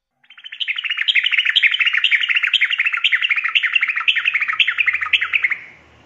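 Female yellow-vented bulbul (trucukan) calling for a male: a loud, fast chattering run of repeated falling phrases, about two a second, that stops suddenly near the end.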